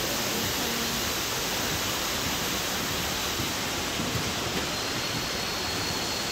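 Steady rushing noise with no pattern or rhythm, with a faint high steady whine joining about five seconds in.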